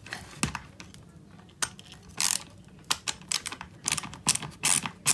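Ratchet screwdriver's pawl clicking as the handle is worked back and forth. A few scattered clicks come first, then a quicker run of clicks from about four seconds in. It is fairly quiet.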